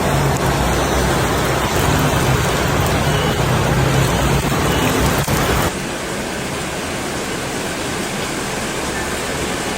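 Heavy rain pouring down, a loud steady hiss with a low rumble beneath it; about two thirds of the way in the sound cuts abruptly to a lighter, thinner hiss of rain.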